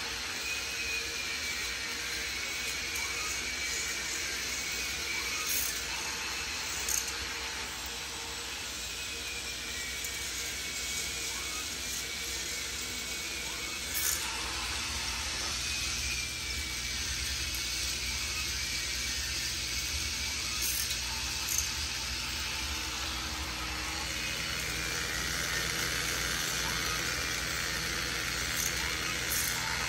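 K'NEX amusement-ride models running: a steady whir of toy motors and plastic parts with a few sharp clicks, joined about halfway by a low steady hum.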